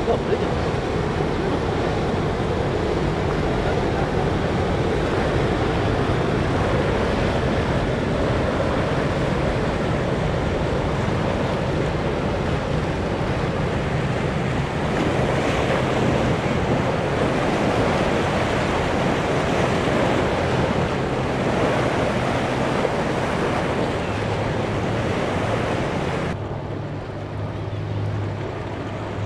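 Wind buffeting the microphone over breaking surf, with the low steady hum of boat engines underneath. Near the end the sound changes abruptly: the hiss dulls and the engine hum comes forward.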